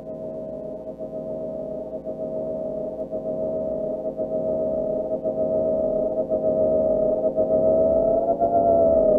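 Ambient music: a single sustained pitched tone that swells steadily louder and starts to slide down in pitch near the end.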